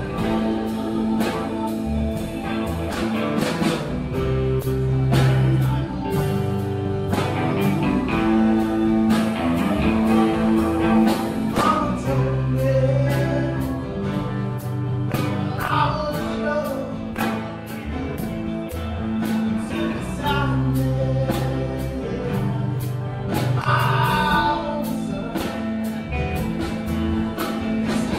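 Live performance of a slow rock song: sustained guitar chords over a steady beat, with a singer carrying the melody.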